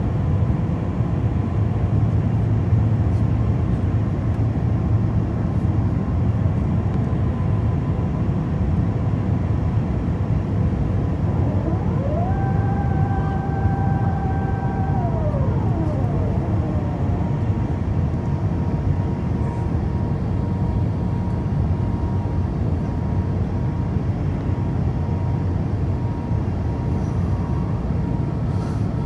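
Steady airliner cabin noise during descent: a constant rumble of engines and rushing air. About twelve seconds in, a mechanical whine rises in pitch, holds for a few seconds, then falls away.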